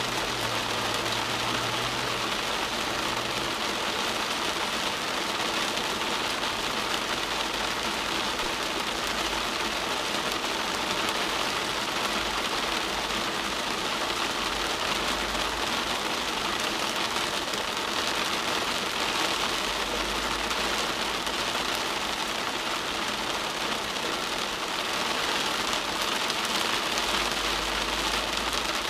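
Heavy rain pattering steadily on a parked car's roof and windshield, heard from inside the car.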